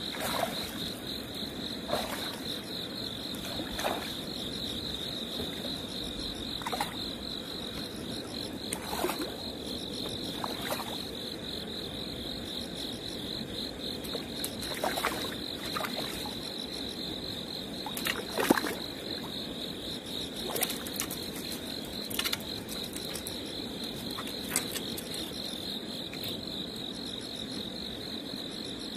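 Crickets chirping in a steady, fast pulsing trill through the night air, with scattered short clicks and knocks every few seconds.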